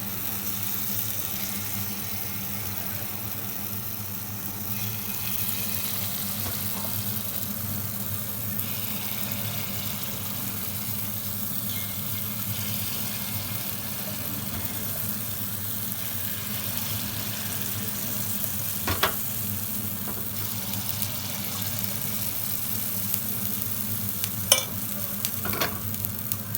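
Paniyaram batter frying steadily in hot ghee and oil in the wells of a paniyaram pan. A few sharp clicks near the end.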